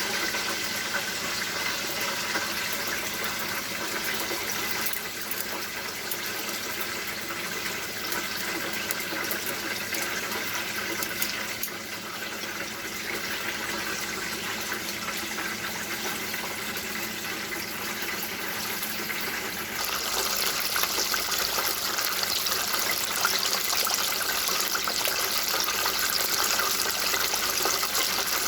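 Water running steadily from a tap, its flow getting louder and hissier about twenty seconds in.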